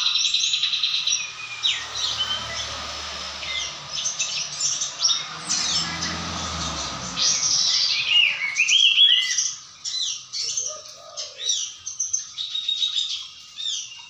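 Caged kapas tembak, a bulbul, singing a long unbroken song of high whistled notes that sweep up and down, with a buzzy trill at the start and a fast run of quick chattering notes in the second half.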